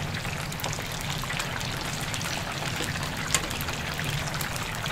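Chicken deep-frying in oil at about 175 °C, the first fry of a double fry: a steady sizzle thick with fine crackles, over a low hum.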